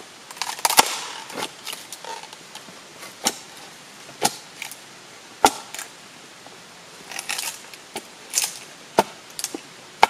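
Sharp knocks of a wooden mallet striking a blade set in a log, splitting off a thin wooden shingle. There are about five hard, irregularly spaced strikes, with lighter cracking and rustling of wood between them.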